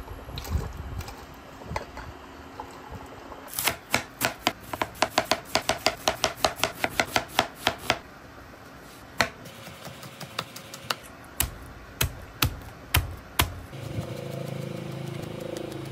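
A kitchen knife chopping onion and garlic on a cutting board. A fast even run of chops, about five a second, lasts several seconds, then comes a handful of slower, harder chops about half a second apart. Near the end a low steady hum comes in.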